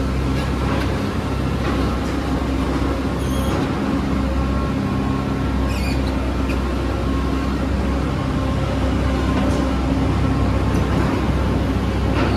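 Steady drone of heavy machinery running inside a tunnel under construction: a low, unbroken hum holding several steady tones.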